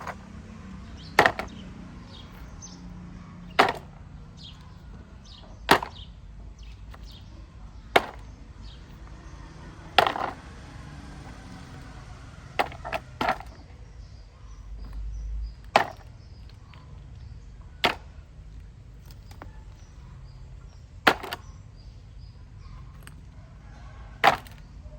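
A series of sharp knocks, about eleven of them, one every two seconds or so, with two close together around the middle, over a steady low rumble.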